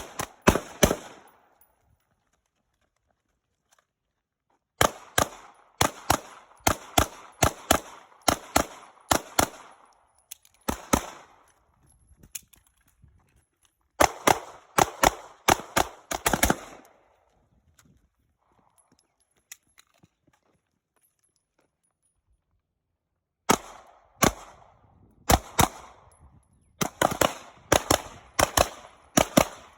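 Strings of rapid gunshots: bursts of quick single shots a fraction of a second apart, broken by pauses of a few seconds, with a long gap in the middle before firing resumes near the end.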